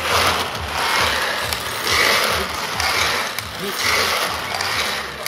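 Wooden garapon lottery drum turned by hand, the small balls inside clattering and tumbling in a swell about once a second as it goes round. Over the turns, white balls drop out into the tray as losing draws.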